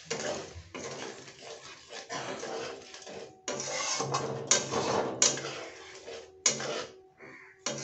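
Flat metal spatula stirring and scraping a thin curry sauce around a metal kadhai, with a few sharp knocks of the spatula against the pan in the second half.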